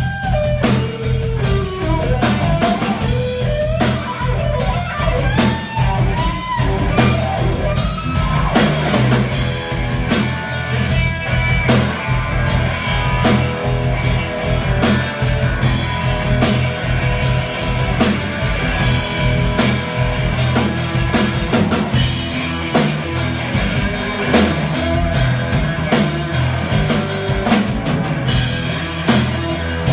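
Live blues rock trio of electric guitar, electric bass and drum kit playing through stage amplification. A lead guitar line with bending notes stands out over the first several seconds, then the full band plays on steadily.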